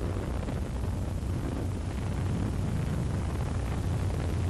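Steady low rumble and hum with a faint even hiss.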